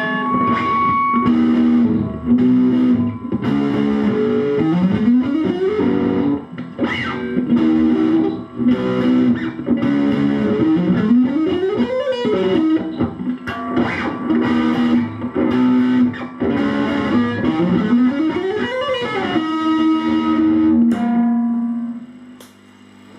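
Schecter C1 Exotic Star electric guitar through a Pandora valve amp head's distortion channel, played as a heavy metal riff of repeated chugging notes, with three glides up and back down in pitch. The playing stops about 22 seconds in.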